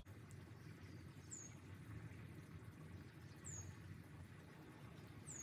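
Near silence: faint room tone, with three faint short high chirps falling in pitch, about two seconds apart.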